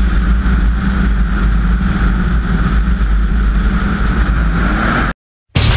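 Aerobatic Pitts biplane's piston engine and propeller running steadily as the aircraft rolls along the runway, heard from a camera on the fuselage with wind noise. The sound cuts off suddenly about five seconds in, and rock music starts just before the end.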